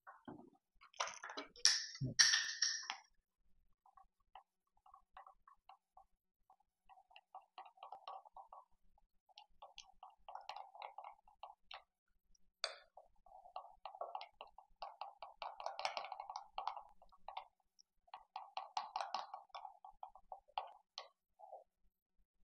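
A spoon stirring powdered-sugar glaze in a glass measuring cup, scraping and clinking against the glass in runs of quick strokes. Near the start there is a short pour of milk and a thump as the jug is set down.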